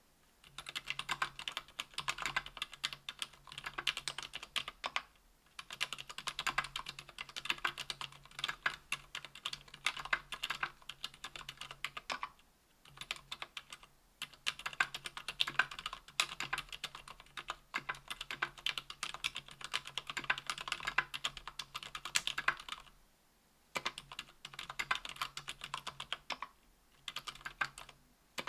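Typing on a KBDfans Tofu 60% aluminium mechanical keyboard with lubed ZealPC Healios silent linear switches (63.5 g), GMK keycaps and an aluminium plate. It is a rapid stream of keystrokes in runs of several seconds, broken by a few brief pauses.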